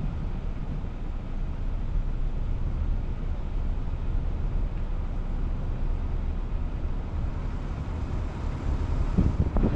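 Steady low rumble of a car driving slowly on a paved road, with wind buffeting the microphone, gusting harder near the end.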